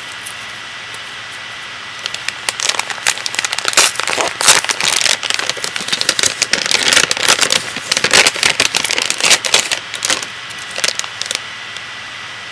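Plastic packaging crinkling and rustling as it is handled and opened: a dense, irregular run of crackles starting about two seconds in and stopping shortly before the end.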